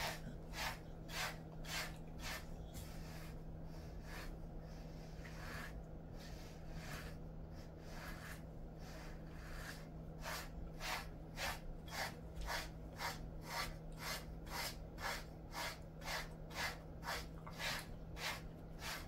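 A small grooming brush stroking through a Jindo dog's thick coat, a rhythmic scratchy rasp at about two to three strokes a second. The strokes grow fainter for a few seconds in the middle, then come strongly again.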